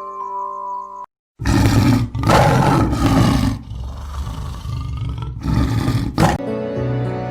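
A loud, rough roar in several surges, lasting about five seconds. It starts after a brief silence that cuts off chiming mallet-percussion music, and gives way to harpsichord music near the end.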